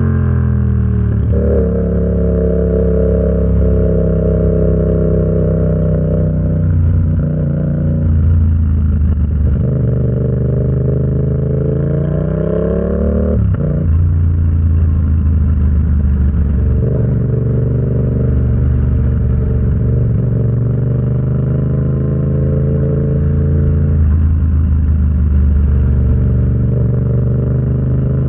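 Yamaha XSR700's parallel-twin engine through an SC Project aftermarket exhaust, ridden under way: engine speed rises and falls repeatedly, with one long climb in revs cut off sharply about halfway through, as at a gear change.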